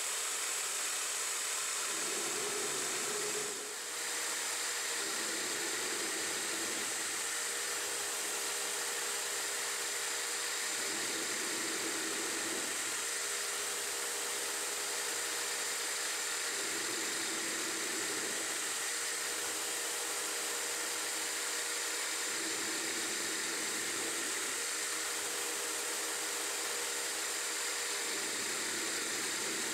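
CNC-converted 9x20 benchtop metal lathe running a turning cycle on a bracket spacer, the spindle spinning while a carbide insert feeds across the part. Over a steady machine hiss, a whine changes pitch or drops out every two to four seconds as the axes move through the programmed cuts.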